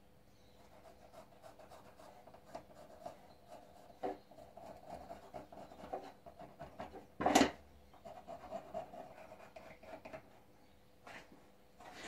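Pencil scratching and rubbing as it traces around a paper template on a slab of ram's horn, in short irregular strokes. One brief, louder noise about seven seconds in.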